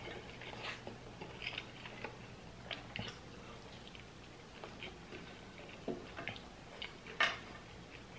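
Close-up eating sounds of a person biting into and chewing fried chicken: faint scattered wet mouth clicks and crunches, with one louder sharp click about seven seconds in.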